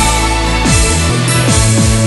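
Electronic dance music from a Vocaloid song, here without vocals: a steady deep bass under repeated falling synth sweeps.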